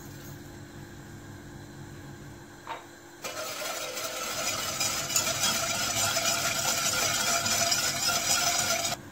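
About three seconds in, a wire balloon whisk starts beating milk and sugar in a stainless steel pot: a steady, fast whisking noise that stops abruptly near the end. Before it there is only a low room hum.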